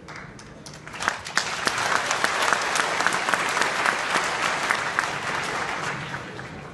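Audience clapping, starting about a second in and dying away near the end.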